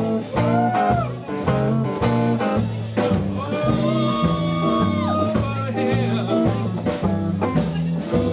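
Live band music with upright bass and drums. A stepping bass line runs under a melody that is held and bent around the middle.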